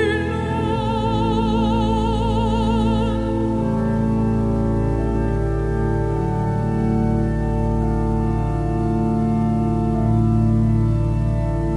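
Organ playing slow, sustained chords of a Dutch psalm tune. At the start a held note with wide vibrato, typical of a solo singing voice, sounds over it and stops about three seconds in.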